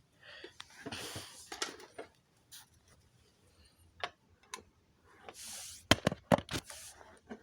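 Plastic parts of an exit sign and emergency light combo being handled and pried apart while its LED lamp heads are removed: soft scraping and rubbing with scattered sharp clicks, and a quick run of louder snaps about six seconds in.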